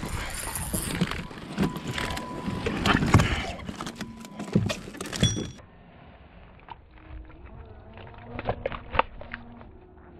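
Bass being reeled in and landed into a kayak: water splashing and rod-and-reel noise for about five and a half seconds, then quieter clicks and knocks as the fish is handled on board.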